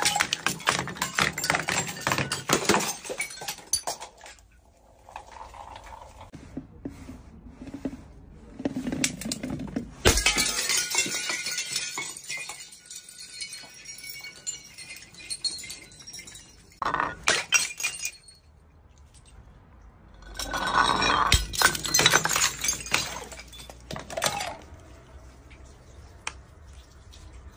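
Glass Borjomi mineral-water bottles smashing on concrete steps. There is a dense clatter of crashing and clinking glass at the start, then sudden crashes about ten and seventeen seconds in, and another long bout of shattering near the end, with shards tinkling in the quieter stretches between.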